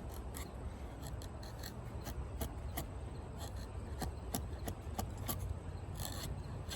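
Kukri's high-carbon steel blade shaving curls off a wooden stick in a run of short, dry scraping strokes, irregular, about two or three a second.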